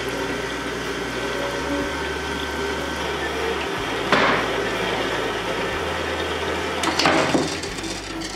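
Horizontal metal-cutting bandsaw running with its coolant flowing, the blade cutting through a bar of aluminum round stock. Two brief louder rasps come about four and seven seconds in, and the sound eases off near the end as the cut goes through.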